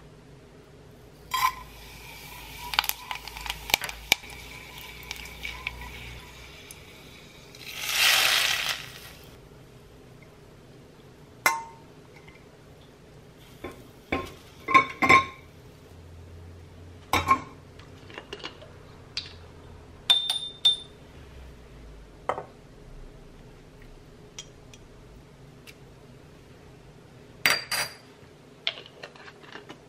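Kitchenware clinking and tapping: a stainless steel mixing bowl rings for a few seconds after a knock near the start, then a small mesh strainer, a ceramic dish and a spoon give scattered sharp taps against the bowl and the counter. A brief hiss comes about eight seconds in.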